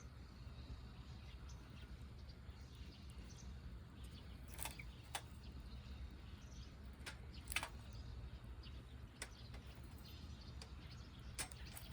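Wood fire in a fire stand, popping sharply about six times over a quiet, steady low hum.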